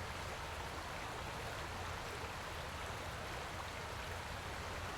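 Stream water flowing, a steady rushing hiss with a low hum underneath.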